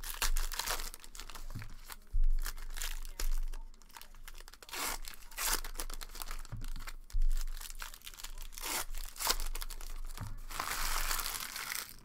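Plastic wrapper of a football trading-card pack being torn open and crinkled in the hands, in irregular crackling bursts, with a longer stretch of rustling near the end. A couple of dull bumps from handling come about two and seven seconds in.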